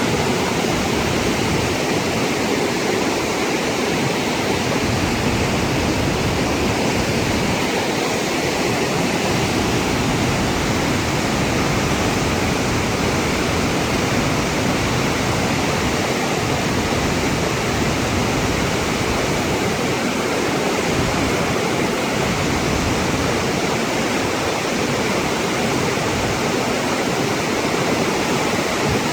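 Flash-flood water rushing steadily down a desert canyon wash, with its waterfall running, as the flood rises.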